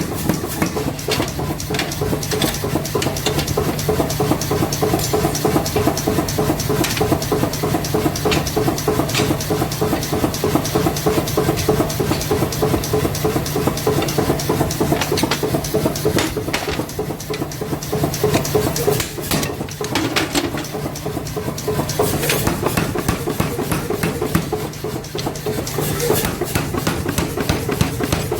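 Forging a nail puller: hot steel struck by a hammer in fast, repeated blows, over a steady machine hum and hiss. The blows thin out for a moment around the middle and again near the end.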